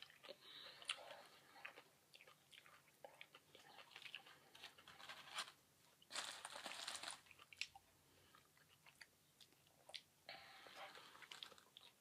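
Faint close-up chewing of a mouthful of buffalo chicken sub: soft, irregular wet mouth clicks and smacks, with a brief noisy hiss about six seconds in and another near the end.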